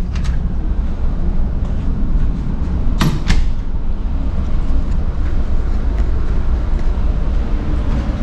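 Steady low rumble of a cargo ship's machinery carried through the accommodation passageways, with a cabin door clicking shut about three seconds in.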